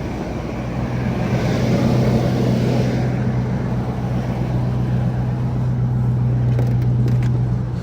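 A high-mileage truck engine running steadily with an even low hum, a little louder from about a second in and easing off near the end. It sounds smooth with no misfire, on spark plugs that are 14 years old.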